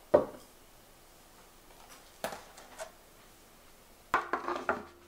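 A glass wine bottle set down on a wooden tabletop with one sharp knock. Then a few lighter knocks and a short clatter near the end as other items, such as a plastic herb container, are put on the table.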